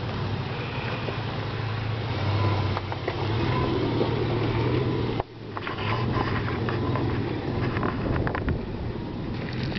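Toyota FJ Cruiser's 4.0-litre V6 running low as the SUV crawls past over a rocky dirt trail. Over the second half, stones click and crunch under the tyres.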